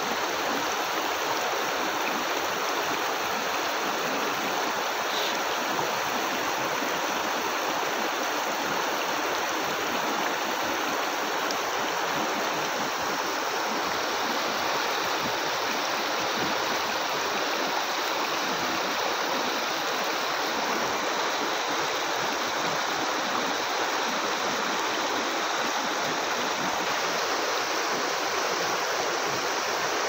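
Shallow, stony river rushing over rocks and around boulders: a steady, even rush of water that does not change.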